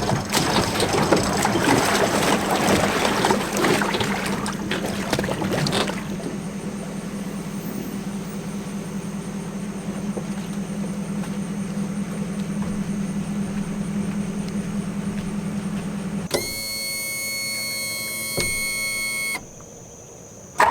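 Boat's outboard motor running with a steady hum, with wind and water rushing loudly over it for the first several seconds. Near the end the hum gives way to a different steady, ringing electronic-sounding tone for about three seconds before it drops much quieter.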